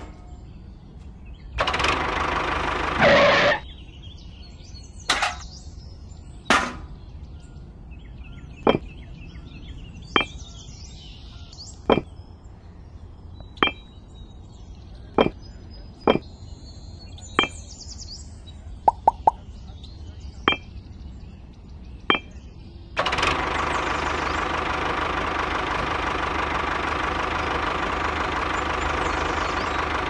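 A small DC hobby motor in a toy model engine runs briefly with a buzzing whine near the start. Then come a dozen or so sharp clicks, about one every second and a half, as miniature clay bricks are set down one by one. From about two-thirds of the way through, the small motor runs steadily again.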